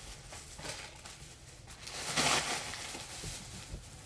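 Rustling and shuffling noises, with one louder rustle about two seconds in.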